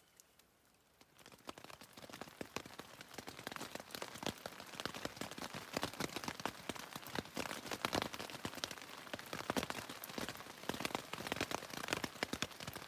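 Rain pattering on a nearby surface: a dense, irregular spatter of drops that starts about a second in.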